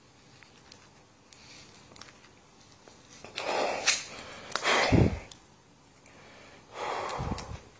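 A man breathing hard through his nose and mouth from the strain of tearing a deck of playing cards by hand: three loud, forceful exhales, the middle one the loudest. Before them come faint crackles and clicks from the card deck being wrenched, with one sharp snap just before 4 s.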